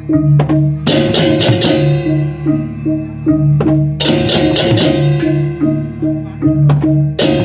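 Balinese baleganjur gamelan playing: a repeating pattern of pitched gong notes under kendang drums, broken by clusters of crashing, interlocking hand-cymbal strokes (cengceng kopyak) about a second in and again about four seconds in.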